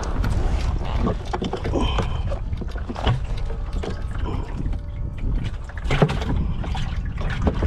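Steady low wind rumble on the microphone, with scattered knocks and clicks from a kayak, the loudest about six seconds in.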